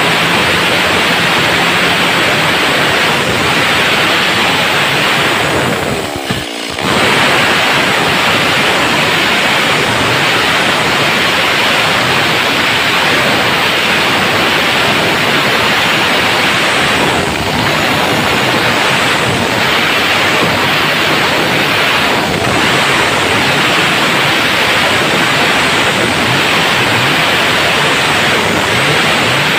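Stihl MS 382 two-stroke chainsaw at full throttle, ripping lengthwise through a squared timber beam: a loud, steady, hissy cutting noise with a brief dip about six seconds in.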